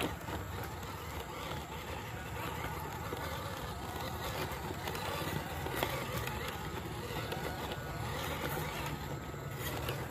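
Small RC rock crawler's stock 180-size brushed electric motor and gearbox running as it drives over rough ground, with a few sharp clicks of tyres or chassis on stones.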